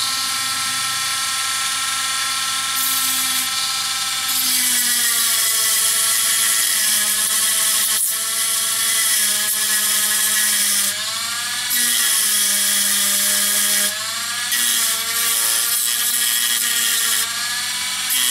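Dremel rotary tool with a disc grinding into the plastic buffer beam of a model wagon. It makes a high whine that dips in pitch and recovers each time the disc bites under load, with spells of hissing cutting noise.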